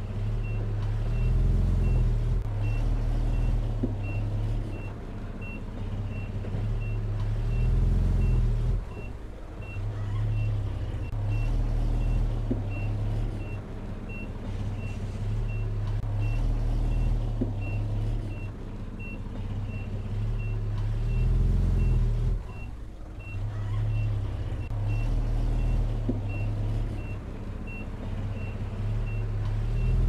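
Heavy diesel engine of a Komatsu bulldozer working, its low rumble swelling and easing with load and dropping off briefly twice. A reversing alarm beeps steadily over it, about three beeps every two seconds.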